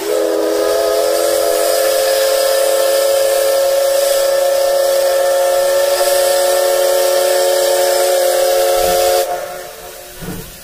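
Steam whistle of the C58 363 steam locomotive blowing one long, loud blast of about nine seconds: a steady chord of several tones over a hiss of steam, cut off sharply. A soft puff of steam follows near the end.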